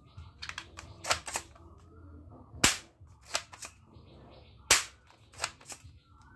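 Plastic toy gun snapping as it is worked and fired: a string of irregular, sharp plastic clicks, two of them much louder, about two-fifths and three-quarters of the way through.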